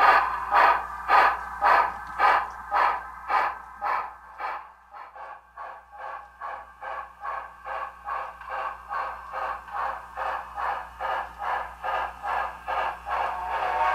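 Digital steam exhaust chuffs from the SoundTraxx Tsunami sound decoder's small speaker in an HO-scale Bachmann Spectrum B&O EM-1 2-8-8-4 model locomotive, a steady beat of about two chuffs a second as it runs along the track. The chuffs drop much quieter about four seconds in, then grow steadily louder again as the locomotive comes back toward the microphone.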